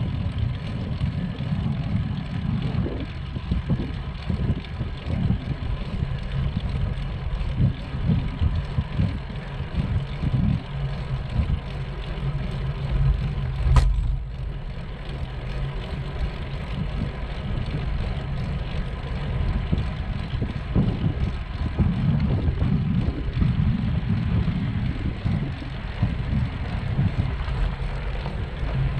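Wind buffeting the microphone and road rumble while cycling, a steady low rumble that flickers irregularly, with one sharp click about halfway through.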